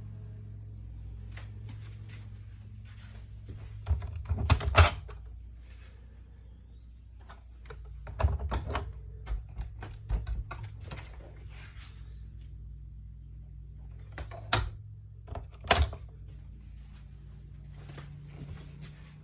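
Scattered knocks and clicks, with loud clusters about four seconds in, from about eight to eleven seconds, and twice around fifteen seconds, over a low steady hum.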